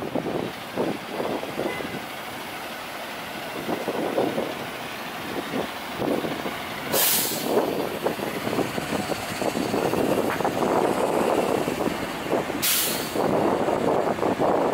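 City street traffic running steadily, cut by two short, sharp hisses of heavy vehicles' air brakes releasing, about seven seconds in and again about five seconds later.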